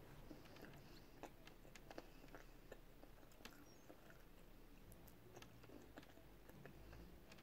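Faint chewing of a mouthful of paella, with soft, scattered mouth clicks.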